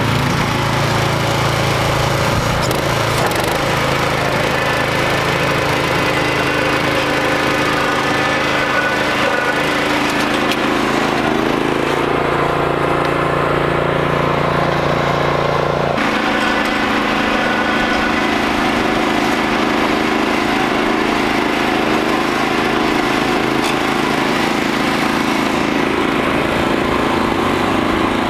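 Gravely Pro-QXT walk-behind tractor's small gas engine running steadily while its front attachment works the turf. About sixteen seconds in, the engine tone changes abruptly.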